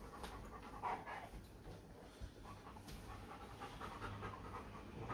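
Hungarian Vizsla panting quietly, with soft rustling of fabric from the cave-style dog bed being handled.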